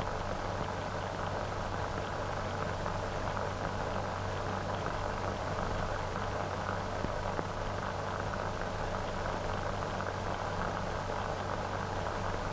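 Steady hiss and crackle of an old optical film soundtrack, with a low hum underneath; no distinct sound stands out.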